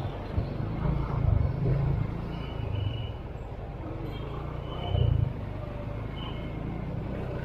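Car driving slowly, heard from inside the cabin: a steady low rumble of engine and road that swells louder a few times.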